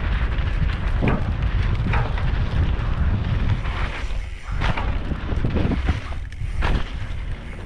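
Wind buffeting the camera microphone while a bicycle is ridden fast over dirt jumps: a heavy, steady rumble, broken by a few short knocks.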